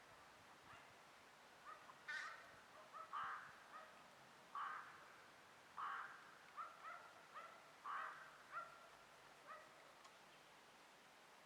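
Crows cawing, a faint series of repeated caws with shorter calls in between, falling away near the end.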